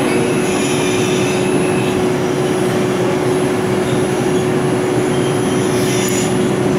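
R142 subway car running at speed through a tunnel, heard from inside the car: a steady rumble of wheels on rail under a constant hum. Light wheel squeals come in about half a second in and again near the end.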